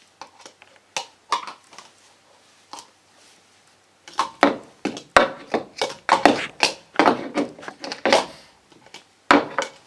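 A baby banging a hard object, a few separate knocks at first, then a fast, irregular clatter from about four seconds in.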